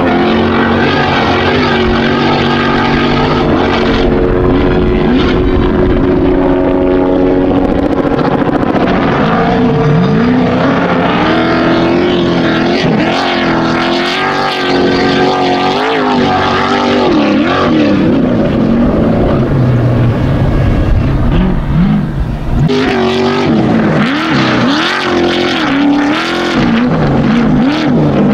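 Off-road race truck engine, held at a steady note at first, then revving up and down repeatedly through the rest.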